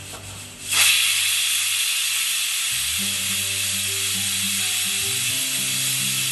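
Aluminium pressure cooker whistling: steam jets out past the weighted valve with a loud, steady hiss that starts suddenly about a second in. It is the cooker's first whistle, the sign that it has come up to full pressure. Background music plays underneath.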